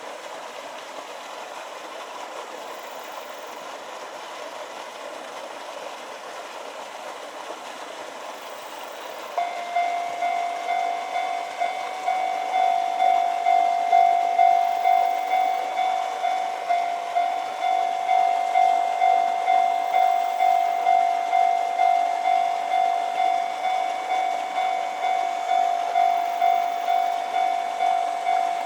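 Japanese level-crossing warning alarm switching on about nine seconds in: an electronic bell tone repeating in a steady beat, about one and a half strokes a second, over a background hiss. The alarm signals an approaching train.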